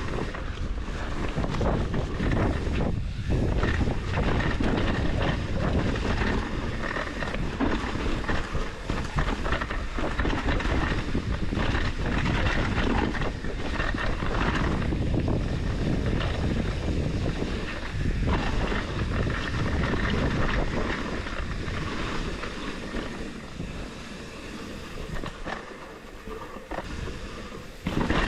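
Mountain bike riding down a dirt trail: wind rushing over the microphone, tyres rolling and clattering over the ground, and the chain slapping and rattling against the frame. It eases off briefly near the end before picking up again.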